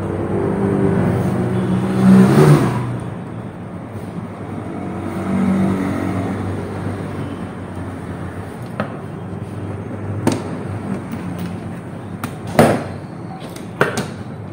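Motor vehicle engines running past, swelling louder about two seconds in, with a rising pitch, and again around five seconds in, over a steady hum. Several sharp clicks in the second half.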